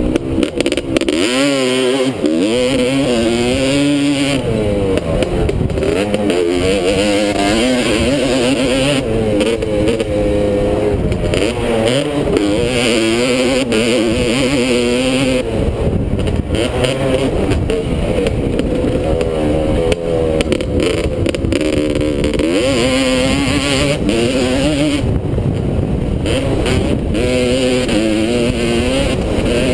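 Honda dirt bike engine heard from the rider's helmet, revving hard and easing off over and over, its pitch climbing and dropping every second or two as the throttle is opened and closed through corners and straights.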